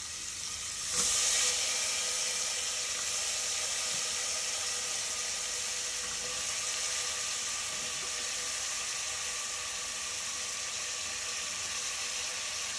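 Chopped raw potatoes dropped into hot oil and spices in a pressure cooker pan, the oil sizzling. The sizzle jumps up about a second in as the potatoes go in, then carries on as a steady hiss.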